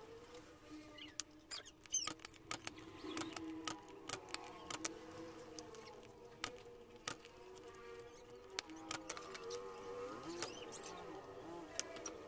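Spring-loaded desoldering pump (solder sucker) clicking as it is cocked and fired to suck solder from component pins on a TV power-supply board, with a dozen or so sharp clicks scattered irregularly. A faint wavering tone runs underneath.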